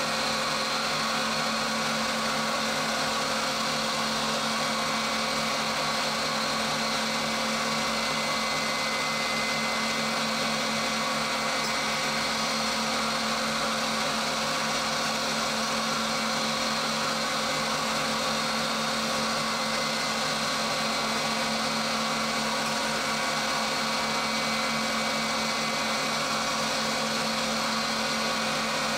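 Milling machine spindle running steadily at high speed as a small end mill is fed gently into a bronze valve part, cutting grooves. It is an even motor hum with a steady whine and no breaks.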